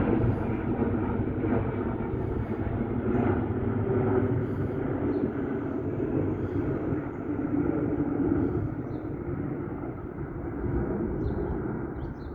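Jet engine noise of a FedEx Cargo Boeing 777 passing low on its landing approach. It is a steady rushing rumble that eases off slightly over the last few seconds.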